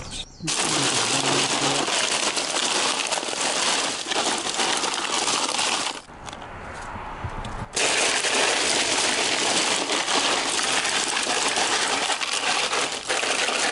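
Ice cubes clattering and clinking against each other and against plastic bottles as a hand rummages through a loaded cooler. There are two long bouts with a brief pause about six seconds in. The ice is still mostly solid cubes, with only a little melt.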